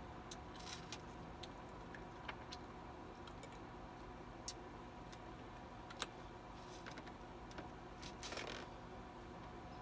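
Table knife clinking against a small jar and a plate as spread is scooped out and spread on crackers. Scattered light clicks, the sharpest about six seconds in, and a short scrape near the end.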